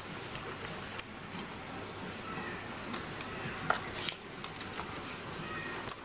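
Scattered light clicks and rustles of paper and craft materials handled on a tabletop, over a steady background hiss; the sharpest clicks come a little past halfway.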